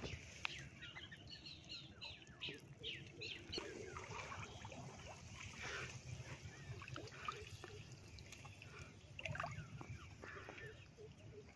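Small splashes and trickling water as a fish is freed from a monofilament gill net in shallow paddy water, with light bird chirps.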